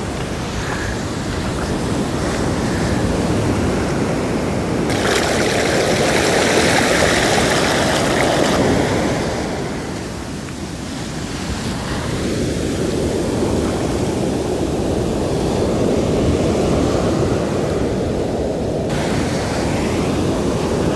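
Shallow ocean surf washing in and back over sand at the water's edge: a continuous rush of water and foam that swells, eases about halfway through, then builds again.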